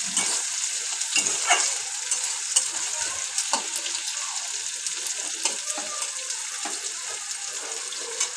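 Sliced onions sizzling in hot oil in a steel kadai while a metal spatula stirs them, scraping and clinking against the pan in short strokes.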